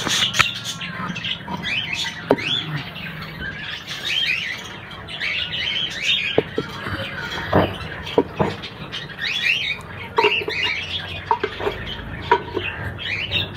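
A flock of small Australian parrots chirping and squawking in many quick, short calls. Now and then there is a sharp knock or scrape as clay-pot nest boxes are handled.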